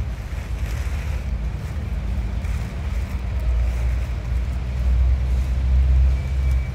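A low, steady rumble that swells between about four and six seconds in.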